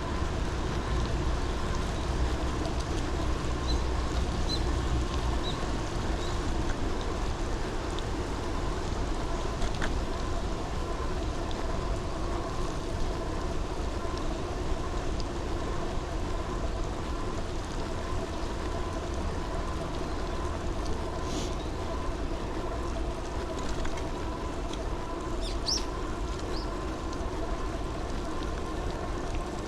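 Steady vehicle riding noise: a constant motor hum with rushing wind and road noise and low rumble, holding even throughout, with a few faint high chirps now and then.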